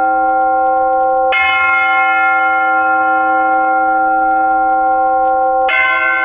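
Church bells ringing, each stroke hanging on long and overlapping the ones before. Fresh strikes come about a second in and again near the end.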